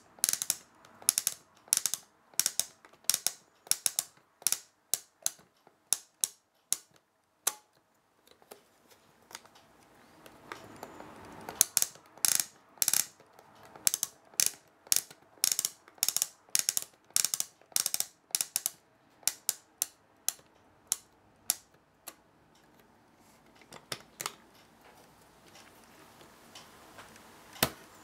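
Ratcheting clicks of a Solari Udine Cifra 2 flip alarm clock's setting drum turned by hand, a few sharp clicks a second, pausing briefly about a third of the way in and thinning out over the last third.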